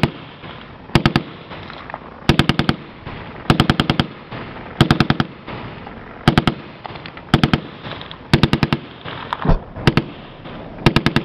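Machine gun firing short bursts of three to six rounds, about one burst a second. About nine and a half seconds in there is a single heavier, deeper report.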